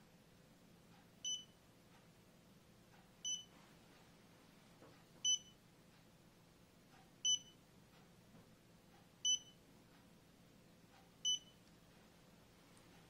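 Clean Meds CM222 fingertip pulse oximeter's built-in buzzer sounding its low-SpO2 alarm: a short high beep about every two seconds, six in all. It sounds because the SpO2 reading has fallen below the alarm limit set on the device.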